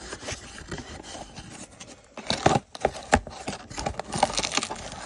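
A cardboard trading-card box being opened by hand: scraping and rubbing of cardboard, broken by several sharp clicks and taps.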